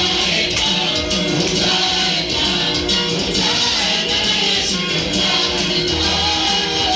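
Live worship band music led by strummed guitar, with a steady beat.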